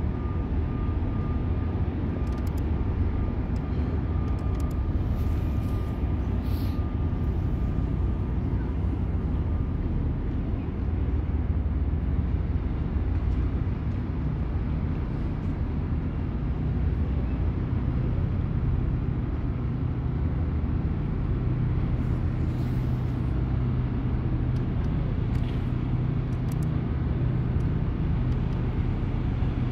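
Steady low rumble of a ship's engines, with a faint thin whine over it for the first ten seconds.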